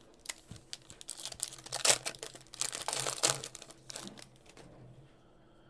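Foil wrapper of a 2022 Panini Prizm World Cup hobby pack being torn open and crinkled by hand, an irregular run of crackles loudest in the middle that dies away near the end.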